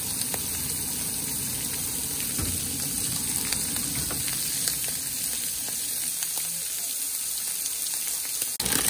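Pot of water boiling hard on the stove: a steady hiss with light scattered pops, cutting off abruptly near the end.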